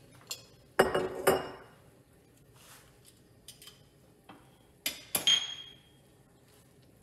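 Glass jar and metal cooking utensils clinking and clattering as they are set down and picked up: a cluster of knocks about a second in, and another about five seconds in with a short metallic ring.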